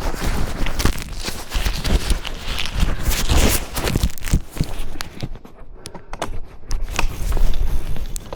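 Wind buffeting and crackling on the microphone of a cyclist riding uphill, in irregular loud gusts that ease off about five to seven seconds in.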